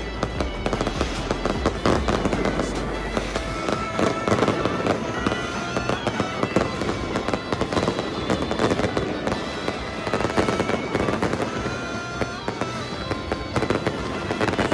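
A fireworks barrage: continuous dense crackling and banging of many bursts at once, with music playing underneath.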